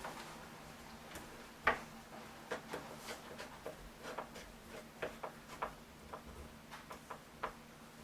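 Irregular light metallic clicks and taps of door handle and lock parts being fitted back together, with one sharper click about two seconds in.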